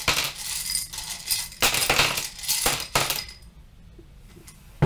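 Small wooden letter tiles clattering as they are shaken in a cup, with many quick clicks for about three seconds, then a quiet pause and one sharp click near the end.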